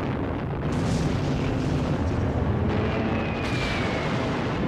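Air-raid battle sounds: a continuous rumble of explosions and gunfire, with a faint falling whistle about three seconds in.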